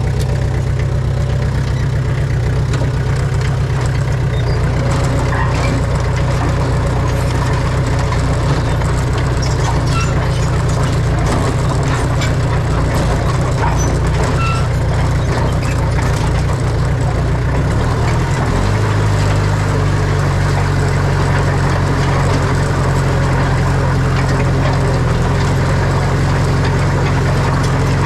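Heavy diesel engine of earthmoving machinery running steadily under load, its engine note shifting about two-thirds of the way through. Short faint clicks and squeaks come through in the first half.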